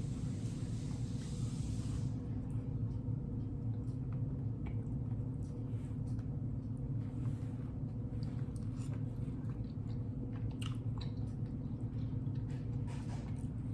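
A person chewing food, with short wet smacks scattered throughout, over a steady low hum.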